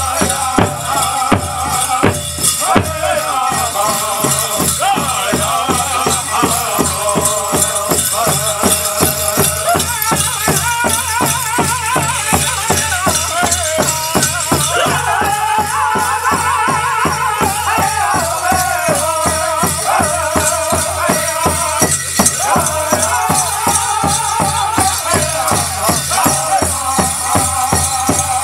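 A powwow drum group plays a contest song: singers chant in high, wavering voices over a steady beat on a big drum. The dancers' bells shake and jingle along with it.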